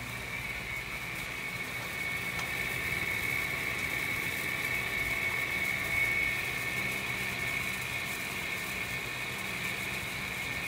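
Blower fan of a homemade chilled-water fan coil unit, built from an old water dispenser, running steadily: an even whir over a low motor hum.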